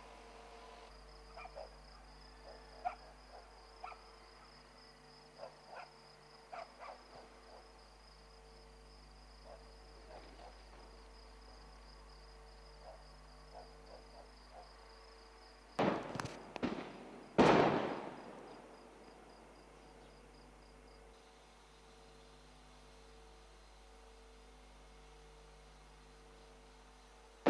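Night-time crickets trilling steadily, with faint scattered pops of distant gunfire. About sixteen seconds in come a quick cluster of sharp cracks and then a much louder explosion that echoes away over a second or two.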